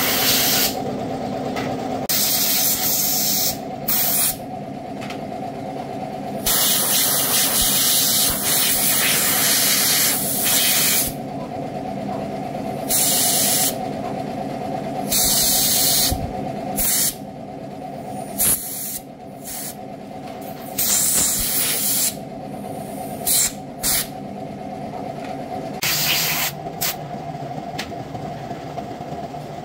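Compressed air from a pistol-grip blow gun blowing dirt off small-engine parts, in repeated bursts of hiss, some short puffs and some held for several seconds. A steady hum runs underneath.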